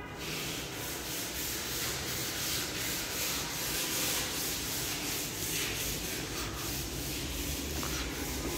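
Steady rushing, rubbing noise that starts abruptly, with a faint even pulse through it: handling noise from the microphone of a handheld phone camera being rubbed as it is carried.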